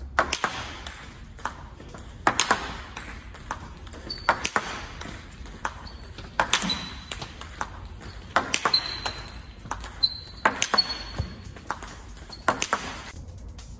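Table tennis ball clicking off the table and rubber-faced paddle in repeated quick pairs of bounce and hit, about one exchange a second: forehand smashes taken on the half-volley, right as the ball bounces. A few brief high squeaks sound in the middle.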